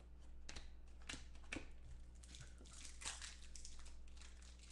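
Faint crinkling and tearing of a foil trading-card pack wrapper being opened by hand, in a few short crackles, along with cards being handled.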